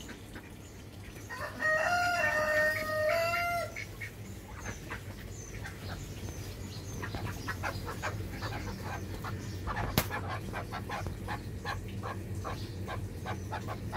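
Partridge calling: a loud, drawn-out call about two seconds in, then a long run of short clucking notes, with a single sharp click about ten seconds in.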